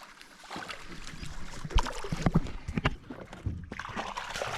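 Irregular knocks, thumps and splashing in a small fishing boat as a hooked barramundi is brought in, with the hardest knocks clustered about two seconds in.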